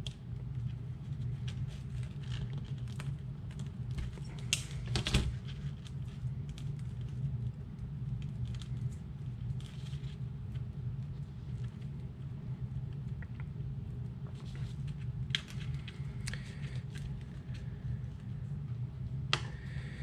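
Hand wire stripper working on 12-gauge battery leads, with the wires handled by hand: scattered small clicks and rustles, with a few sharper snaps about five seconds in and again near the end, over a steady low hum.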